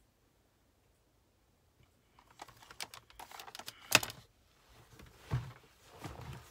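Small plastic clicks and taps from an eyeshadow palette and makeup brush being handled, starting about two seconds in, with one sharp click about four seconds in and a duller knock about a second later.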